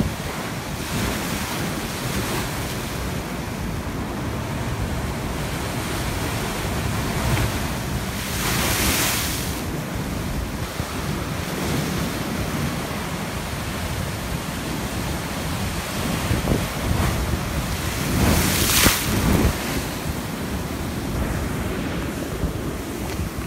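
Ocean waves surging over a rocky reef shelf and pouring back off its ledges in a steady rush, with two louder crashes, one about eight seconds in and one about three-quarters of the way through. Wind buffets the microphone.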